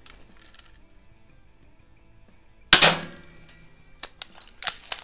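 A single shot from a Healthways Top Score spring-piston BB pistol a little past halfway through, with a brief metallic ring as the BB ricochets off the can and strikes the steel target enclosure. A few light clicks follow.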